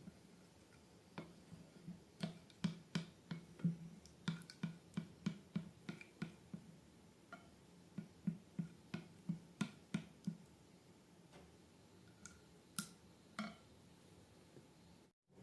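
A run of short sharp clicks, about two to three a second, stopping about ten seconds in, with three more clicks near the end.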